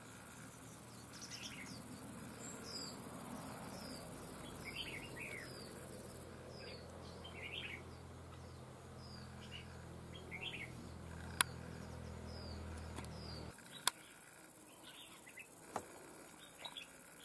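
Red-whiskered bulbuls calling: many short, quick, falling chirps mixed with brief warbled phrases, from a caged decoy and a wild bird near a trap. Underneath runs a low steady hum that cuts off about two-thirds of the way through, and there are a couple of sharp clicks.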